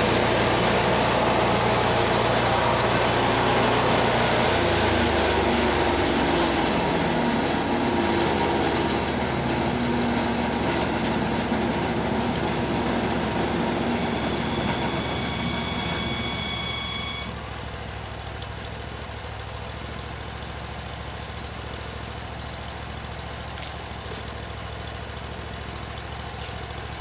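LASKI F500H stump grinder's engine running under load as its cutting wheel, freshly fitted with new teeth, chews into an ash stump. About two-thirds of the way through, the sound drops to a quieter, steady engine run as the wheel comes out of the cut.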